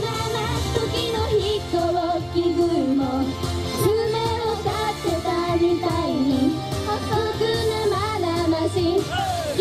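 J-pop idol song performed live: female voices singing the melody over a full backing track.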